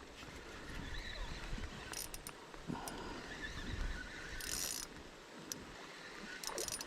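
Small spinning reel being cranked, its mechanism clicking and whirring lightly, with a few short hissy bursts, as a line is reeled in during prawn fishing.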